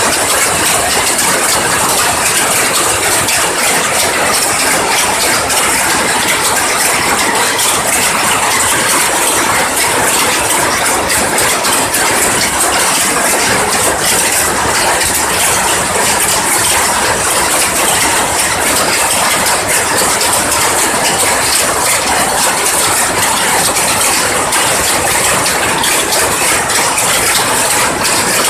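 Powerloom weaving: a loud, steady, rapid mechanical clatter of the loom's working parts that runs on without a break.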